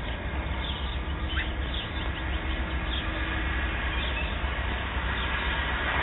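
Outdoor street ambience through a doorbell camera's microphone: a steady low rumble with scattered short bird chirps and a brief falling call about a second and a half in.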